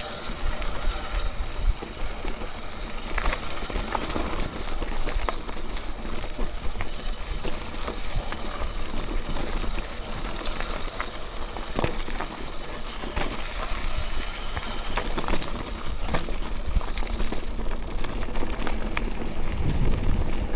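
Mountain bike rolling over rough, rooty trail: a steady rumble of tyres and wind on the mic with the bike rattling, and sharp knocks now and then as it hits roots and rocks.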